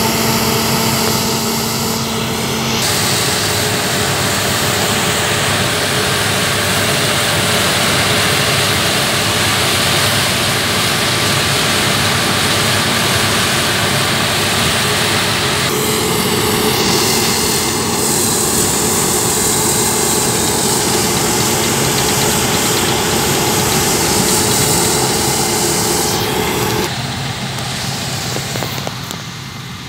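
Claas Lexion combine harvester working through standing grain: a steady, loud drone of engine and threshing machinery. The sound changes abruptly about three seconds in, around the middle and near the end.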